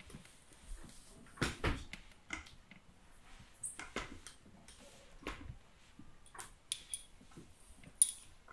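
A person climbing out through a window: rustling clothes and irregular soft knocks and scrapes against the window frame and sill, with a sharp click about eight seconds in.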